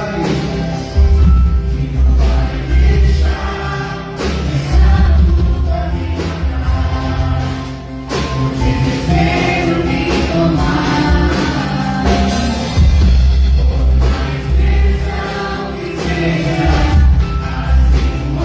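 Live church worship band playing a gospel song: drum kit and guitar with heavy bass under a group of singers singing together.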